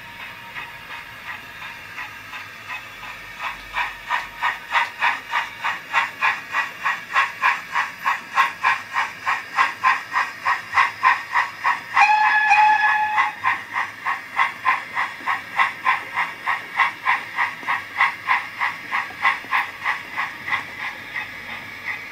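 Steam locomotive sound from a Zimo MX645R decoder loaded with a Digitrains 4MT sound project, played through the twin speakers of a 7mm-scale Ivatt 2MT model. A soft steam hiss gives way to exhaust chuffs at about three a second, with a short whistle blast about halfway through. The chuffs grow softer near the end as the engine coasts.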